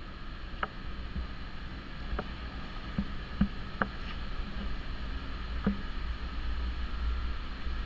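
Steady low rumble of body-shop background noise with a few faint scattered clicks.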